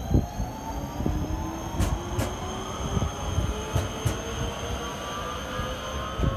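Prague metro train pulling out of the station: its traction motors give a slowly rising whine over a low rumble, with a few sharp clicks.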